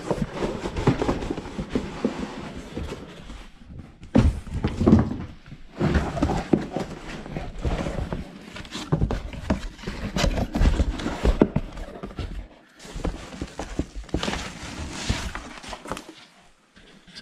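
Cardboard shipping box being opened and its packing handled: irregular knocks and thuds mixed with rustling, in bursts with short pauses.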